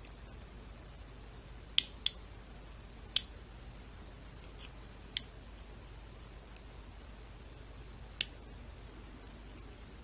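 Western Electric 30C lock being picked with a pick and tension tool: sharp, separate metallic clicks from the lock's works and the tools in the keyway. About five clear clicks come a second or more apart, two close together about two seconds in, with a couple of fainter ticks between.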